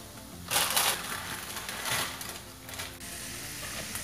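Plastic instant-noodle packet crinkling and being crumpled in the hands, in two bursts: one about half a second in and a longer one about two seconds in.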